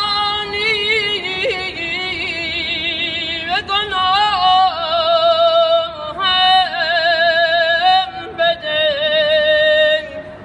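A young man singing a Persian devotional song without accompaniment, holding long wavering notes broken by quick ornamental turns. The voice stops about ten seconds in.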